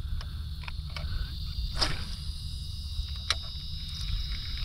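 Steady high-pitched insect chorus, crickets or similar insects chirring in the marsh, over a low rumble, with a few short faint clicks.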